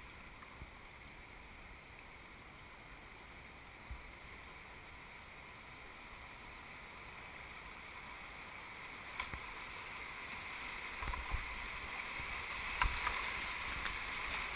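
Rushing whitewater of a river rapid, growing steadily louder as the canoe closes on it and runs into it. A few short knocks, like a paddle striking the canoe, stand out in the second half.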